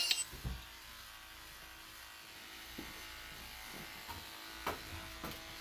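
Electric pet clippers buzzing steadily as they shave a dog's belly fur before a C-section, with a low thump about half a second in and a few soft knocks near the end.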